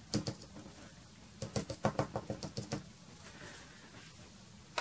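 Soft pastel stick dabbed against paper on a board: quick runs of light taps, about six a second, that stop about three seconds in.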